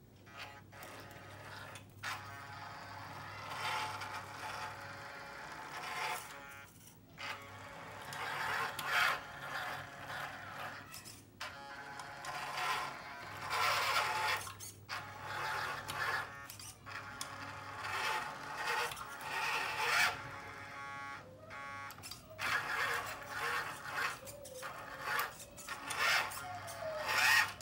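Electric motor and gearbox of an LD-P06 Unimog U1300L 1/12-scale RC crawler whining in repeated bursts as the throttle is worked on and off, with brief pauses between runs.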